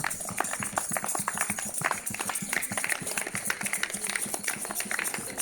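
Many people clapping, a dense, irregular patter of hand claps from scattered neighbours.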